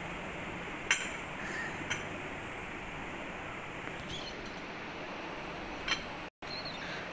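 Three sharp clinks, about a second in, two seconds in and near the end, as a cockatiel knocks its toy about, over a steady hiss.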